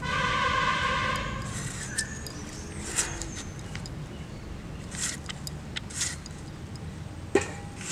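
A steady pitched tone with several overtones sounds for about the first second and a half. After it comes a handful of short scraping strokes as green figs are pared against an upright fixed blade.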